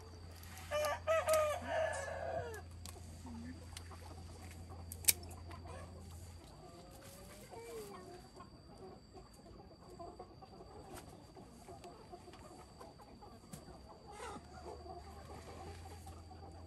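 A rooster crows once about a second in, a pitched call of about two seconds, then chickens cluck faintly on and off. A single sharp click sounds about five seconds in.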